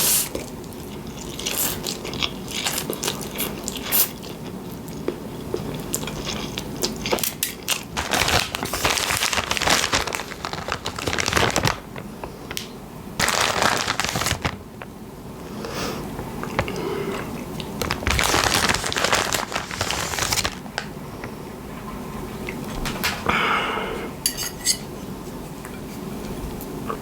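Close-miked eating of spaghettini with bolognese sauce: wet chewing in irregular bursts, with a fork now and then against the plate.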